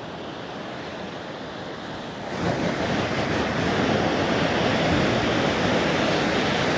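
Wind buffeting the microphone over the sound of surf, growing louder about two seconds in and staying up.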